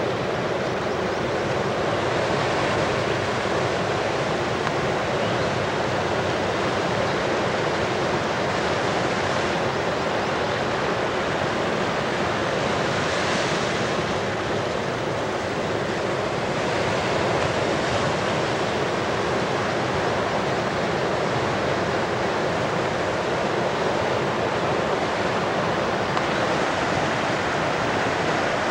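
Ocean surf: a steady wash and rumble of waves breaking, with a brief hissier surge about halfway through.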